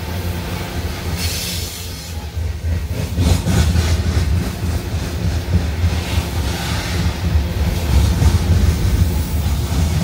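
CSX freight train's open-top hopper cars rolling past: a steady low rumble of wheels on rail, with bunches of clacks as the wheels cross rail joints from about three seconds in.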